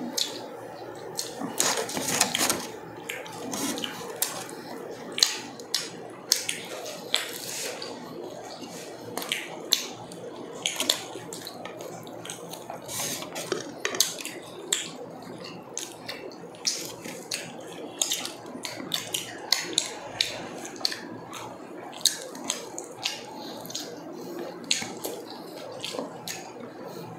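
Close-up eating sounds: wet chewing and mouth clicks with a steady patter of short, sharp crackles and clicks as roast chicken and skewered pork barbecue are torn apart by hand and bitten.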